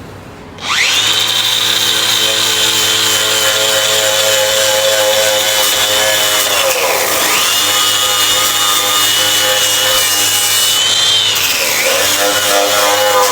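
Electric angle grinder running at full speed on metal, a loud steady high whine that sags in pitch and recovers twice, about halfway through and again near the end, as the disc is pressed into the work.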